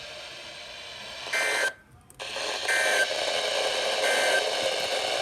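Three short bursts of Emergency Alert System digital data tones, the end-of-message signal that closes a warning, about a second apart over a steady radio hiss.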